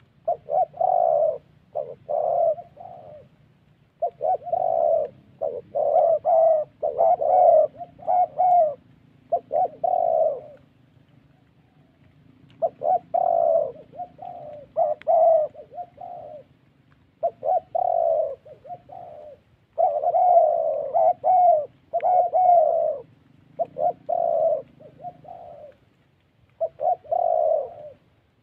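Spotted doves cooing: phrase after phrase of low, rolling coos in quick groups, with short gaps between the phrases and one longer pause of about two seconds halfway through.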